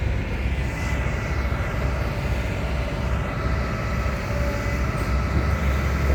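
Heavy mining equipment's engine running steadily: a dense low rumble with a faint high whine over it.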